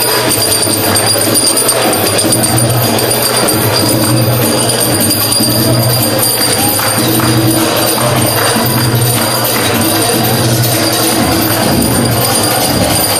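Live belly-dance music played on an electronic keyboard, loud and continuous with a steady beat.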